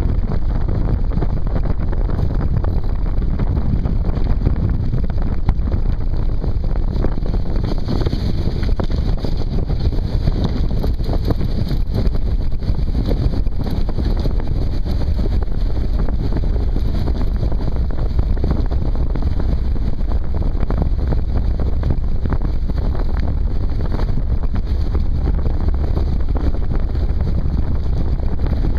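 Strong wind buffeting the microphone of a camera mounted on a land yacht under sail. It makes a steady, loud rush with a deep rumble from the craft running along.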